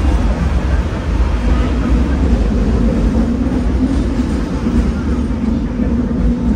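Hong Kong double-decker tram running along its tracks, heard from the upper deck: a steady low rumble, with a steady hum setting in about a second and a half in.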